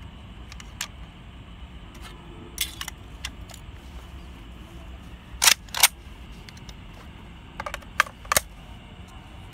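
Type 81 assault rifle being reassembled by hand: scattered sharp metallic clicks and clacks of steel parts fitting together. The loudest is a pair of clacks in quick succession a little past halfway, followed near the end by a cluster of clicks as the magazine is fitted.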